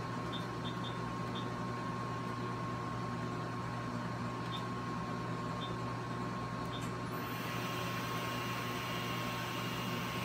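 Vertical machining center running with a steady hum and a held tone, with a few short faint chirps. About seven seconds in, the spindle spins up and adds a high, steady whine.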